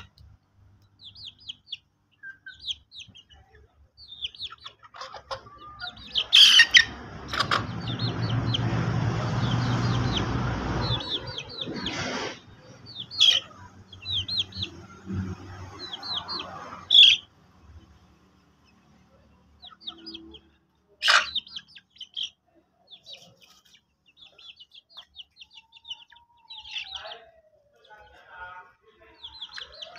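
Chickens: quick runs of high chirping throughout, a stretch of rustling noise from about seven to twelve seconds in, and a few sharp clicks. A lower rising-and-falling call comes near the end.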